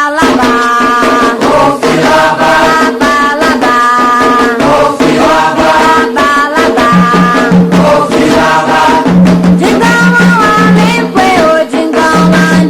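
Candomblé ritual chant for Xangô: voices singing a melodic line over a steady percussion beat.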